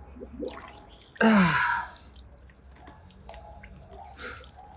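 Water splashing and streaming off a large snapping turtle as it is lifted out of a small pond. About a second in, a man gives one short grunt that falls in pitch. Water keeps dripping in light scattered drops after that.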